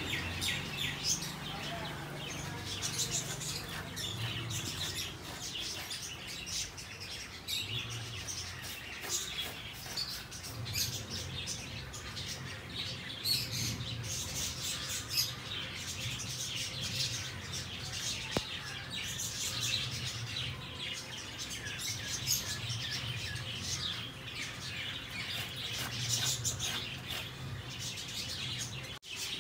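Many small birds chirping and twittering, short high calls scattered throughout, over a low drone that comes and goes.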